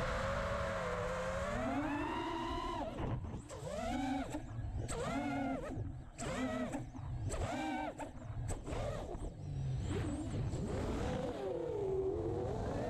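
LS-210 FPV racing quadcopter's brushless motors and propellers whining, the pitch rising and falling with the throttle. From about three seconds in comes a quick series of short throttle punches, each whine climbing and dropping away, as the quad flips and dives.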